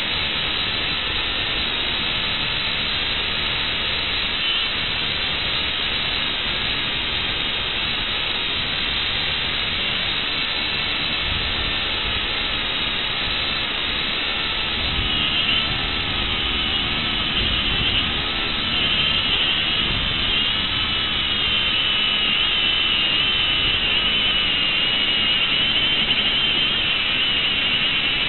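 FPV drone's brushless motors and propellers whining over a steady rush of air, the whine wavering in pitch with throttle and getting louder and higher in the second half.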